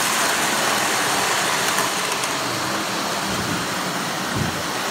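Model trains running on three-rail O-gauge track: a steady noise of the wheels and motors, with a brief low thump near the end.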